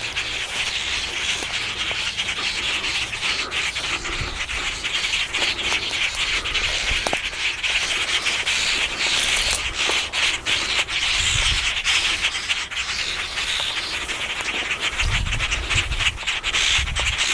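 Continuous rustling and scraping with many small crackles.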